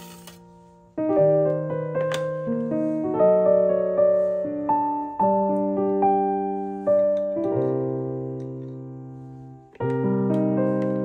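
Background solo piano music: a slow melody of single notes and chords, each struck and ringing away, with a short pause about a second in and another near the end.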